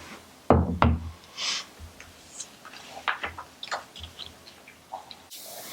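Hard plastic underwater phone housing being handled and unpacked: scattered clicks, taps and brief rustles, with a pair of louder knocks about half a second in.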